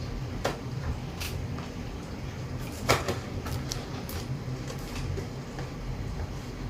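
Toy cash register parts and packaging being handled: scattered light clicks and knocks, with one sharper knock about three seconds in.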